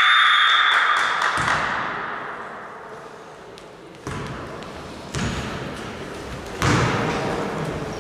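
A basketball bouncing on a gym floor, three separate thuds a second or so apart, ringing in a large hall. A loud echoing din fades away during the first couple of seconds.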